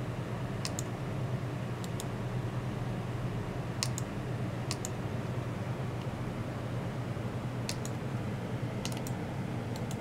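Computer mouse button clicking several times at uneven intervals, each click a quick double tick of press and release, over a steady low hum.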